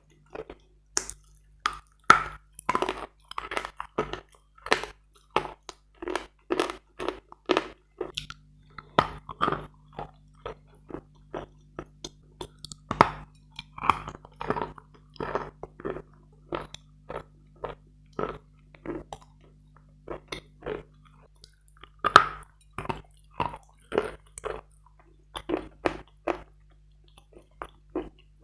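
Close-miked crunching as a person chews hard, partly wetted Bogorodsky chalk, a quick uneven run of sharp crunches, several a second.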